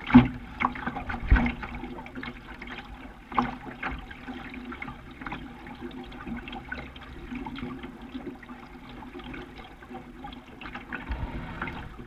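Water lapping and gurgling against a sailing dinghy's hull as it moves through the river, with a few knocks in the first few seconds.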